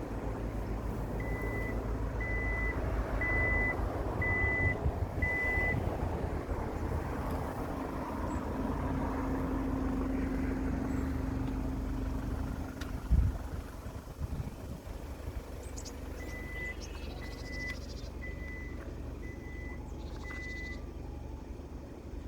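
A vehicle's reversing beeper sounding five short high beeps about once a second, and again five beeps near the end, over a steady low engine rumble. A single sharp thump about thirteen seconds in.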